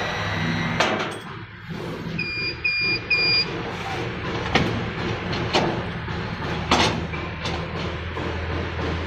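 CO2 laser cutting machine running with a steady low hum, three short electronic beeps about two seconds in, and several sharp clicks.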